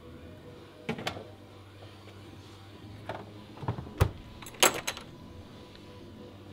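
Bottles and cans knocking and clinking as someone rummages in a small cabinet: a few separate sharp knocks, then a heavier thud about four seconds in followed by a quick cluster of bright clinks.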